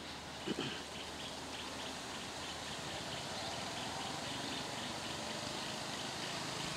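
Steady rushing background noise with faint rhythmic chirping, and one short knock about half a second in.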